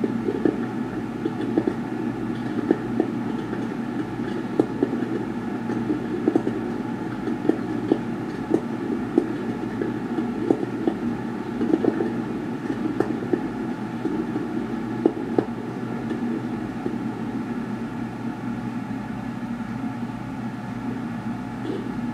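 Fireworks going off: irregular sharp bangs and pops, about one a second, over a steady low rumble.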